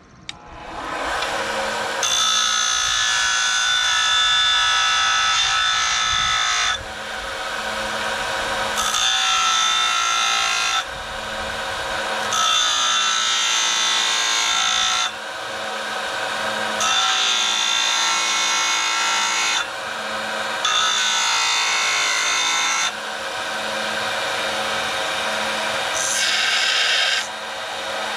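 Electric grinder running and grinding a steel hot chisel to shape, its steady whine growing louder and quieter every few seconds as the work is pressed on and eased off.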